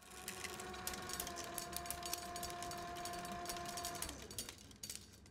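Flatbed film editing table running a reel of film: a steady motor whine with irregular clicking from the moving film. About four seconds in the whine slides down in pitch and stops as the machine winds down, while the clicking carries on more faintly.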